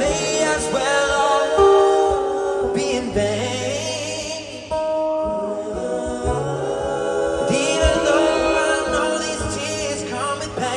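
Live concert music: wordless vocals in layered harmonies, held on long notes that bend and slide, with a gospel, choir-like sound.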